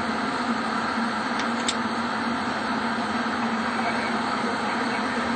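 Steady hum and hiss of the space station module's ventilation, with a low steady tone under it, and a couple of faint clicks about a second and a half in.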